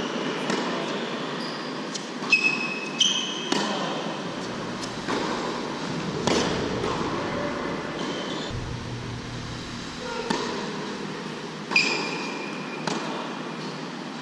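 Tennis rally on an indoor hard court: sharp racket strikes and ball bounces every second or so, with a few short high squeaks of tennis shoes on the court surface.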